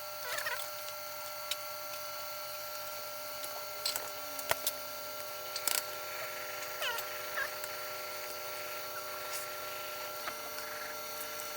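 Scattered sharp clicks and taps of hands working on the inside of an opened laptop, over a steady electrical hum.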